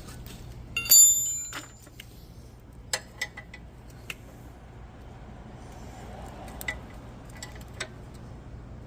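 Metal tools clinking on a brake caliper while a seized slide pin is worked at: one loud ringing clink about a second in, then several lighter clicks and taps.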